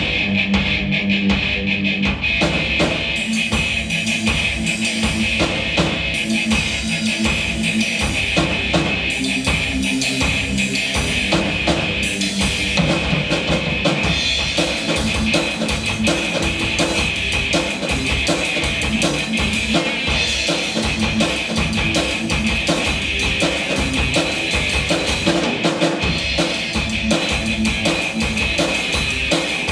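Live rock instrumental: a Tama drum kit played with a busy, rapid beat of bass drum and cymbal strikes, together with an electric guitar through a Marshall amplifier.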